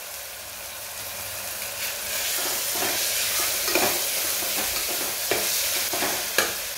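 Onion-tomato masala with ginger-garlic-chilli paste sizzling in hot oil in a pressure cooker while a steel spoon stirs it. A few sharper scrapes of the spoon on the pot come through in the second half.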